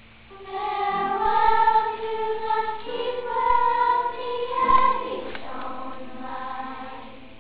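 Children's choir singing, coming in about half a second in, loudest through the middle, then a softer held phrase that fades toward the end.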